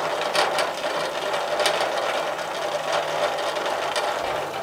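Steady electrical buzz and motor whirr from a mains-powered microwave oven transformer rig, with a vacuum cleaner wired in series as its ballast. Scattered sharp crackles of arcing sound over it, the loudest about half a second in and again at about a second and a half.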